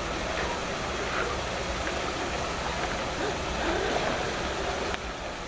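Steady rush of water cascading over rocks into a pool, an artificial waterfall; it becomes a little quieter about five seconds in.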